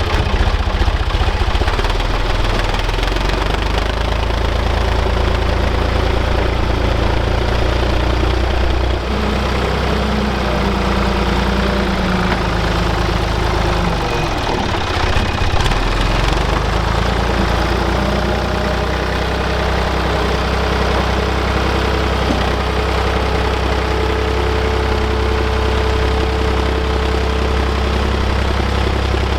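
Engine of a work machine running steadily, its note shifting as the load changes about nine seconds in and again around the middle.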